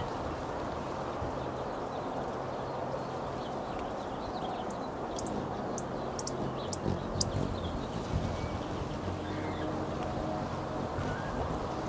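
Outdoor background ambience: a steady low rumble, with a few short, high bird chirps about five to seven seconds in and some soft low bumps just after.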